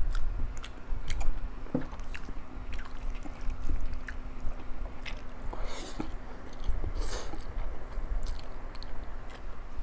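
Close-miked chewing of food, with many small wet mouth clicks. Two short hissy bursts come around six and seven seconds in.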